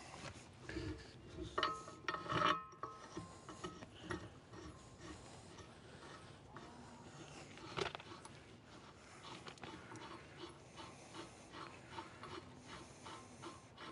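Metal clanks, knocks and scraping as a tractor's dual rear wheel rim is worked against the hub to line up its bolt holes, with a louder knock that rings briefly about two seconds in and a run of light ticks in the last few seconds.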